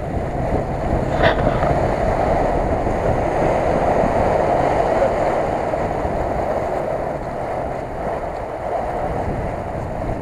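Subaru Forester driving through shallow flood water: its engine and the water surging around it make a steady noise that fades slightly as it moves away, with wind on the microphone. One brief click about a second in.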